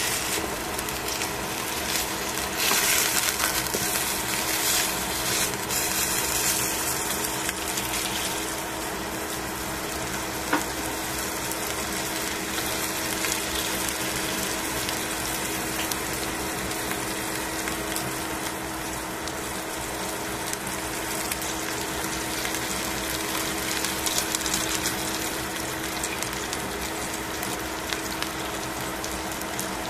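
Chicken pieces sizzling in hot fat in a stainless steel frying pan, a steady crackling hiss that swells louder for a few seconds near the start, with a steady low hum underneath and one small click about ten seconds in.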